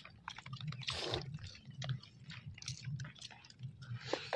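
Close-up sound of someone chewing food, with irregular small wet clicks and crackles, and a brief noisy rustle about a second in.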